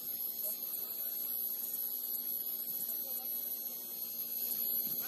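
Steady electrical hum with a thin high-pitched whine above it, over faint background noise; nothing stands out.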